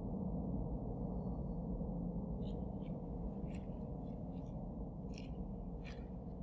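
A steady low rumbling drone, with a few faint scattered ticks above it.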